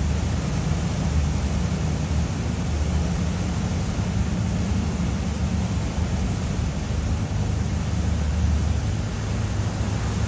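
Sirena 78 motor yacht underway: a steady low engine drone under an even rush of wind and water.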